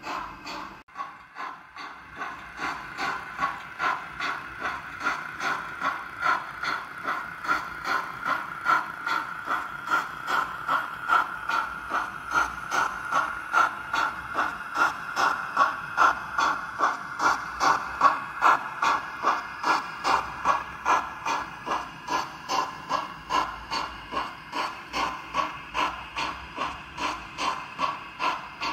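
Sound decoder of a Roco H0 model steam locomotive, DB BR 10 002, playing a steady steam-engine chuff of about two to three beats a second as the model runs past.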